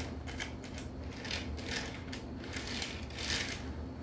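Plastic wheels of an HO scale model boxcar clicking and scraping on the rails and rerailer as it is pushed along the track by hand, in a string of short irregular scrapes.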